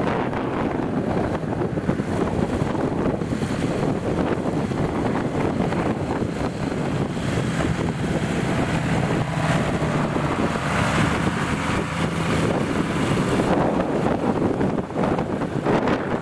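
Land Rover four-wheel-drive engines running as the vehicles drive over rough, muddy ground, under heavy wind buffeting the microphone. A steady engine drone stands out through the middle of the stretch.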